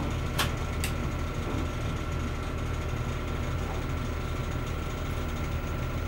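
Steady low machine hum with a faint high whine held over it, and two sharp clicks in the first second.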